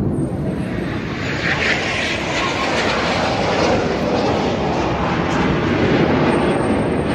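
Single-turbojet engine of an Aermacchi MB-339 aerobatic jet flying past overhead: a loud, steady rushing sound that grows brighter about a second in.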